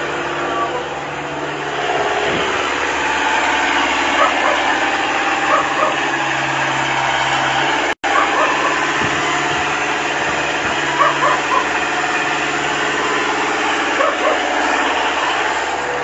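Kubota mini backhoe's diesel engine idling steadily, with a dog barking a few times over it. The sound cuts out for an instant about halfway through.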